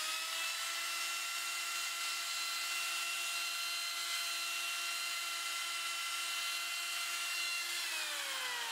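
Arbortech power carving tool running at a steady high whine, then winding down near the end, its pitch falling.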